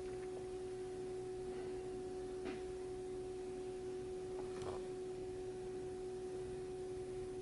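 A steady, even pitched tone that holds its pitch and level without fading, with a couple of faint light clicks partway through.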